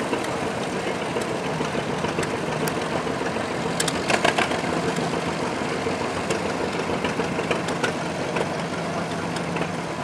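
Allis-Chalmers Model G's small four-cylinder gasoline engine running steadily at low speed as the tractor drives along. About four seconds in there is a brief burst of clicks and clatter.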